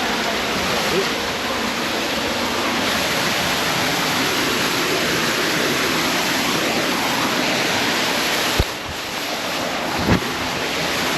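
Waterfall rushing in a steady, full roar of falling water, with two brief thumps about a second and a half apart near the end.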